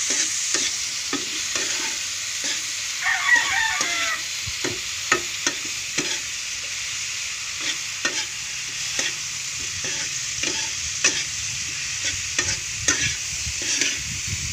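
Crickets stir-frying in a metal pan, sizzling steadily while a metal spatula scrapes and taps against the pan about twice a second. A rooster crows once about three seconds in.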